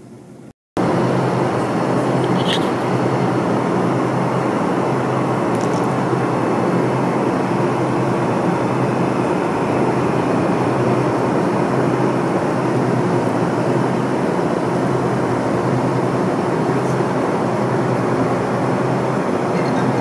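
Steady loud noise with a low hum underneath, cutting in abruptly after a brief dropout about a second in.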